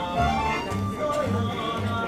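Live Shōwa-era kayō song: a man sings the melody over a plucked upright double bass playing steady low notes, about two a second.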